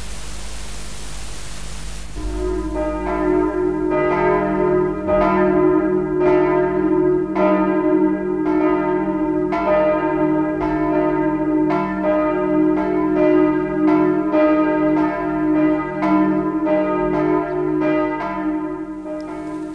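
Church bells pealing, their strikes coming about twice a second over a sustained hum. The bells start about two seconds in, after a steady hiss, and fade near the end.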